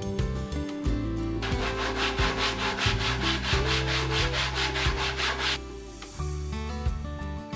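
Sandpaper rubbed by hand over a wooden board in quick, even back-and-forth strokes, about five a second, sanding down a protruding spot. The sanding starts about a second and a half in and stops about two seconds before the end, over background music.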